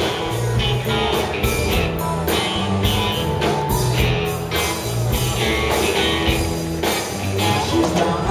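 A live rock band playing: electric guitars, electric bass and a drum kit.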